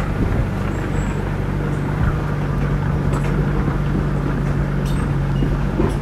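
Small crawler bulldozer's diesel engine running steadily with a constant low hum as it pushes its blade through brush, with a few faint ticks over it.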